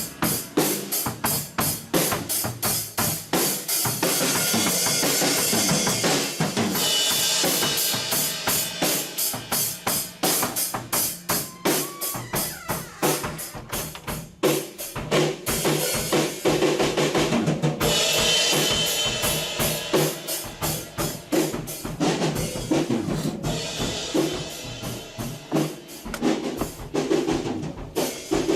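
Acoustic drum kit played with a steady beat of bass drum, snare and cymbals; the cymbal wash swells in a few stretches.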